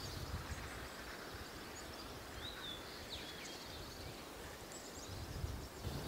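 Faint outdoor ambience: a steady low rumble, with a few thin, short bird chirps a little before the middle.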